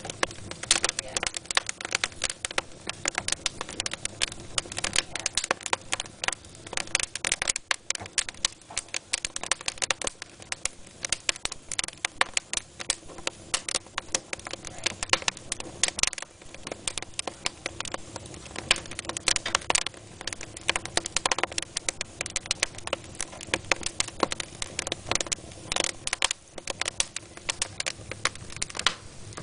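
Wood fire burning in a fireplace, crackling and popping with a dense, irregular run of sharp snaps.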